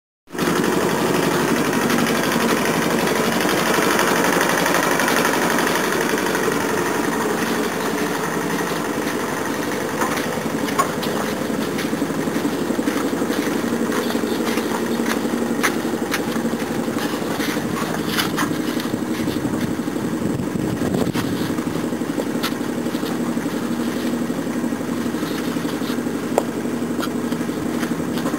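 An engine running steadily with an even low hum, with a few light knocks now and then.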